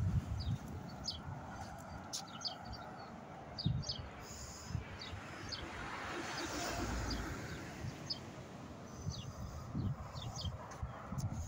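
Small birds chirping in short, repeated calls over steady street background noise. A vehicle passes, swelling and fading about six to seven seconds in, with a few low thumps along the way.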